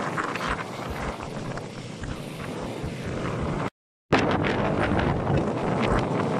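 Storm wind buffeting the microphone over rough, churning harbour water slapping against boats and jetty. It drops out briefly just past halfway and comes back a little louder.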